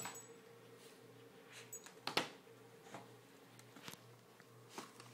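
A miniature bull terrier scrambling over a couch and onto a side table: scattered soft rustles and knocks, the loudest about two seconds in, over a faint steady hum.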